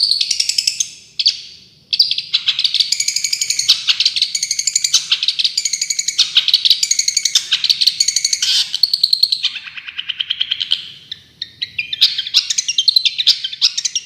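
Songbird singing a fast 'tembakan' song: long runs of sharp, rapidly repeated high notes, with short breaks about two seconds in and again around ten seconds.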